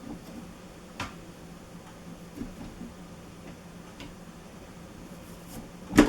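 Aluminium frame of a shower transfer bench being slid together: a few light clicks and handling sounds, then a loud sharp snap near the end as a spring-loaded brass button catches in its hole and locks the sliding rail into the leg frame.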